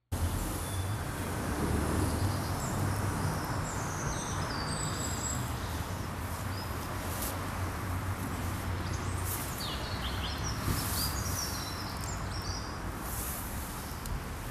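Outdoor park ambience: a steady low rumble with small birds chirping now and then over it.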